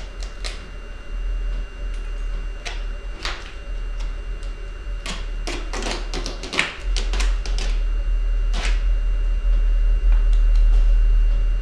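Duct tape being pulled off the roll. A few short rips come as the end is worked loose, then a quick run of ripping about five to seven seconds in as a long strip is stretched out, and one more rip later. A steady low hum runs underneath.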